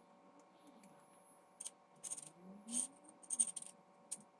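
Circlip pliers and steel parts handled against each other: a few short scratchy scrapes and clicks of metal on metal in the second half, over a faint steady hum.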